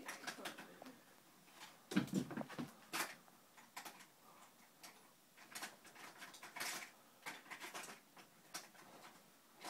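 Irregular soft knocks and taps, with a louder thump about two seconds in.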